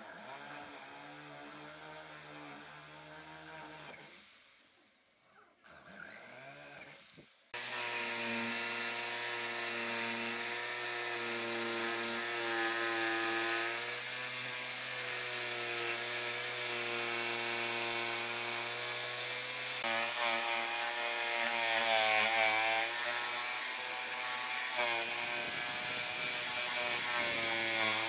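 An electric drill bores a starter hole through a pine board, running for a few seconds and again briefly. About seven seconds in, a Makita jigsaw starts and runs steadily, cutting a curved line through the pine.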